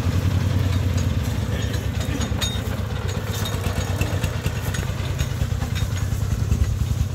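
Công nông farm truck's single-cylinder diesel engine chugging steadily as the truck drives away down a dirt track, with a few faint clatters.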